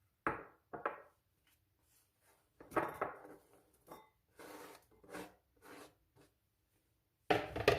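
Chopped onion being moved from a wooden cutting board into a container: a series of short scrapes, knocks and clinks of kitchen utensils and dishware, the loudest near the end.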